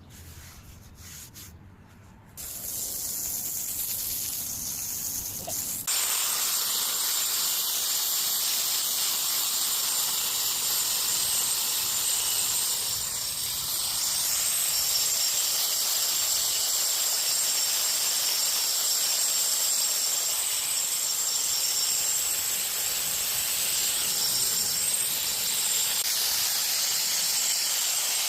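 A motorised tool running steadily with a loud hiss and a thin high whine. It switches on abruptly about six seconds in, after a quieter stretch.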